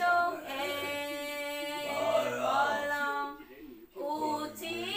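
A woman singing a simple song in Taiwanese, unaccompanied, in long held notes, with a short break about three and a half seconds in.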